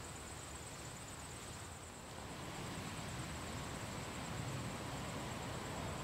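Quiet outdoor ambience: a steady high-pitched insect trill over a soft, even hiss that grows a little louder about two seconds in.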